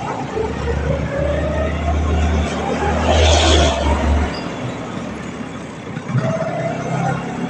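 Vespa PX scooter's single-cylinder two-stroke engine running, its pitch rising twice as it is revved. A low drone drops away about four seconds in, just after a louder rushing swell.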